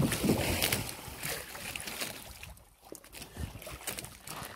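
Water and wind noise around a small outrigger fishing boat at sea, with a few knocks in the first second or so; the noise dips briefly about two and a half seconds in.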